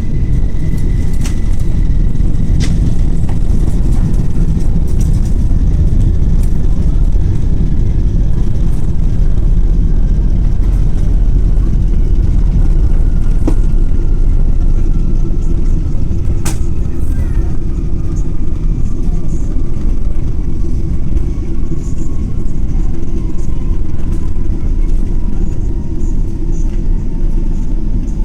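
Cabin noise aboard a Boeing 777-300ER during landing: a loud, steady low rumble, with a faint whine that slowly falls in pitch throughout and a few sharp clicks.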